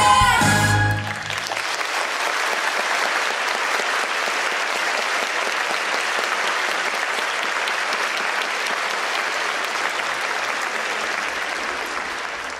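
The dance music ends on a final chord about a second in, then a theatre audience applauds steadily; the applause fades out near the end.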